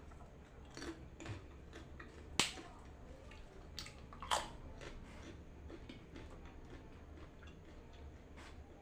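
Someone biting and chewing crunchy kerupuk crackers close to the microphone. There are a few sharp cracks, the loudest about two and a half and four and a half seconds in, with quieter chewing clicks between.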